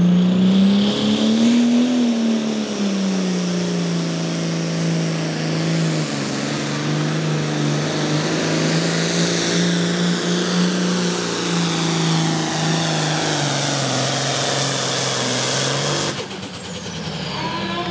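John Deere 4455 Pro Farm pulling tractor's turbocharged 466-cubic-inch diesel running flat out under load while pulling a weight-transfer sled. The engine note climbs at first, then sinks in steps as the sled bogs it down. About sixteen seconds in the engine sound cuts off suddenly at the end of the pull, leaving a high whine falling away.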